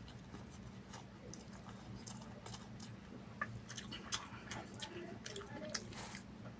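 Faint close-up chewing of a mouthful of chicken biryani rice: soft, scattered wet mouth clicks and smacks, over a low steady hum.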